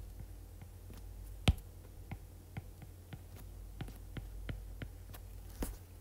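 Stylus tip tapping and clicking on a tablet's glass screen during handwriting: a string of light, irregular clicks, with one louder tap about a second and a half in.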